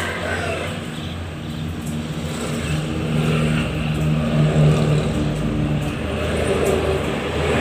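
A motor vehicle's engine running with a steady low hum, growing louder about halfway through.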